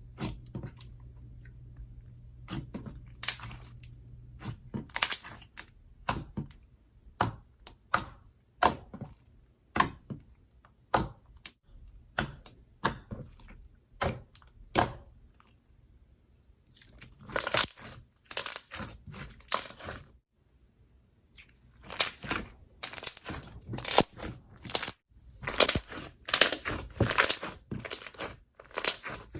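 Thick, glossy slime being poked and squeezed by hand, giving wet pops and clicks. The pops come one at a time at first, then from about halfway through in thicker, crackly clusters.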